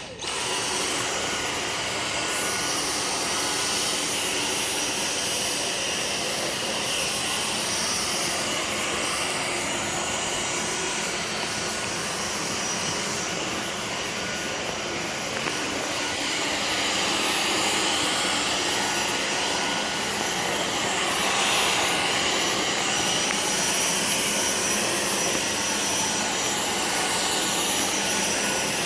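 Dyson V6 Motorhead cordless stick vacuum switched on and running steadily: a high motor whine over rushing air, starting at once and holding an even level.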